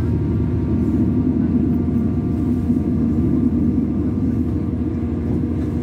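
Inside a DB Class 612 diesel railcar running at speed: a steady low rumble from the running gear and track, with the diesel engine's steady drone. The drone comes out a little clearer near the end.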